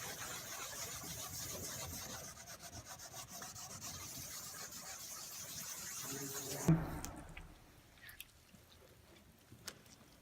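Sanding pad rubbed back and forth on a Toyota Yaris's plastic headlight lens, a rough scratchy rub in quick repeated strokes as the oxidation is sanded off. It stops about two-thirds of the way in with a single knock, followed by a few faint clicks.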